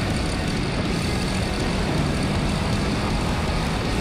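Motorcycle engine running hard at a steady pitch on a track lap, heard from an onboard camera under heavy rushing wind noise.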